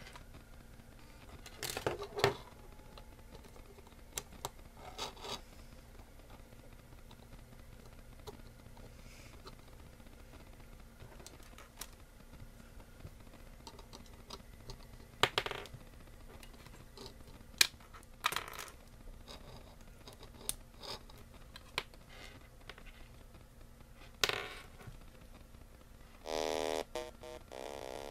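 Scattered clicks and knocks over a faint steady hum; near the end, a burst of electronic tones about a second long from an Arduino-based noise toy synth.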